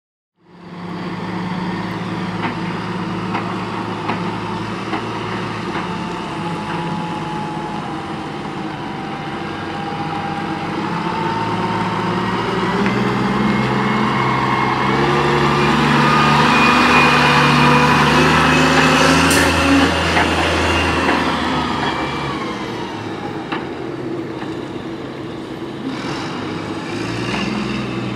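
1999 Crane Carrier garbage truck with an Impac CSL side-loader body driving off: its diesel engine runs steadily, then climbs in pitch and grows louder with a rising whine as the truck accelerates about halfway through, and eases off near the end as it moves away.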